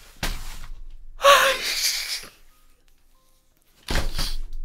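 A man's exasperated, breathy exclamation of annoyance, "ah~ ishi~", in three bursts: a short one, a longer drawn-out one about a second in, and another short one near the end.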